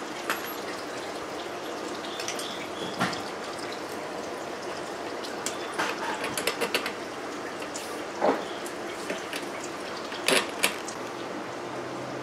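Scattered plastic clicks and knocks from assembling an electric lawn mower's handle: the clamping knobs being screwed on and the power cord clipped into place. The loudest knocks come a little past the middle and near the end, over a steady background hiss.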